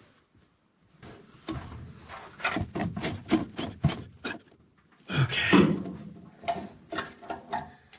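Sharp clicks, knocks and scraping of metal parts being handled as a water heater expansion tank is fitted and threaded onto its pipe connection, with a brief louder rush of noise about five seconds in.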